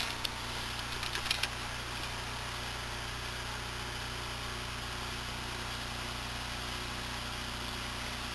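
Steady low hum and hiss of background noise, with a sharp click at the very start and a few light handling knocks in the first second and a half.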